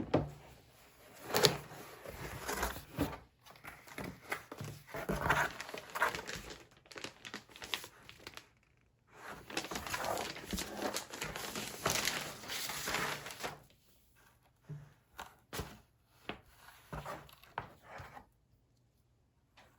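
Wrapping crinkled and rustled by hand, with small knocks and clicks; the rustling stops about 14 seconds in, leaving only a few scattered clicks.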